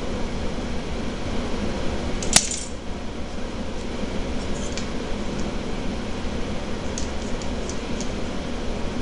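Grooming scissors cutting a cocker spaniel's long fur: one sharp metallic click with a brief ring about two and a half seconds in, then a few light snips near the end, over a steady room hum.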